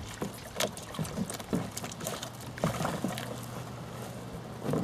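Irregular small knocks and crunches over a light wash of water, as an aluminium-free canoe is handled at a gravel lake shore: hull and paddle knocking and feet and gravel shifting in the shallows, with a louder cluster of knocks near the end.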